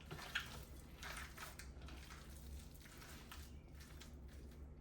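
Faint wet squishing of hands kneading a raw ground-beef meatball mixture, in soft irregular squelches, over a low steady hum.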